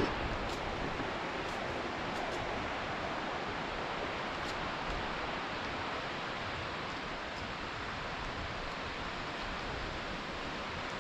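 Steady rushing of a river over rocks and rapids, an even hiss, with a few faint ticks above it.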